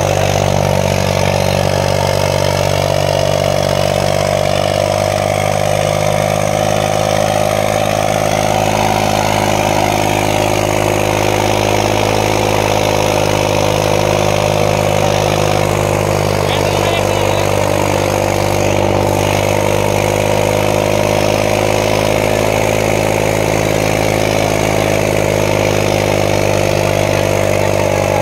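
Farmtrac 60 tractor's three-cylinder diesel engine running hard under heavy load as it drags a harrow through soft tilled soil, a steady, unbroken drone.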